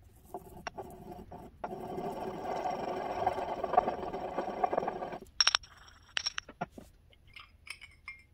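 Stone pestle grinding saffron in a stone mortar: a steady scraping rasp of stone on stone for a few seconds, then several sharp knocks of the pestle against the bowl.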